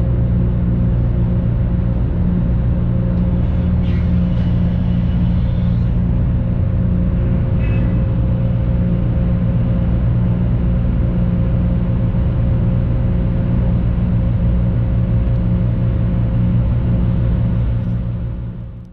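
Steady low drone of the ferry Shima Shima Meon's diesel engines heard on board, with a faint higher hum above it. It fades out near the end.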